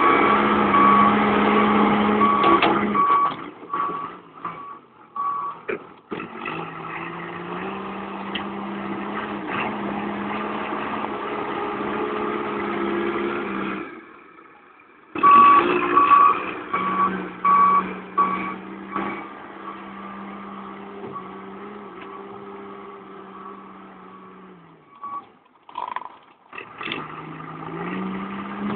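A heavy vehicle's engine running, with its reversing alarm beeping in a steady series over the first few seconds and again about halfway through. The engine note steps up and down as the vehicle works, and there is a short lull just before the second run of beeps.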